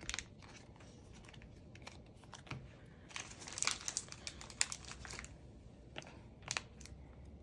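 Plastic card sleeves and packaging crinkling as photocards are handled and stacked: quiet, scattered rustles and light clicks, busiest a little past the middle.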